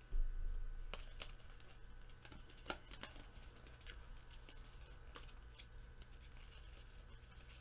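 Faint clicks and light rustling of a stack of trading cards being flipped through by hand, over a steady low hum.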